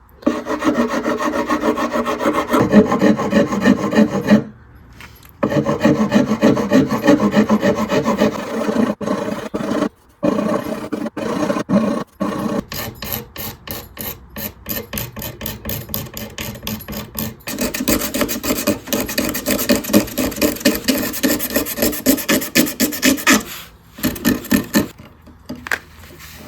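Coarse hand file rasping back and forth in quick strokes over chalky, spackle-like filler on an acoustic guitar headstock, taking off an old repair. It stops briefly a few times.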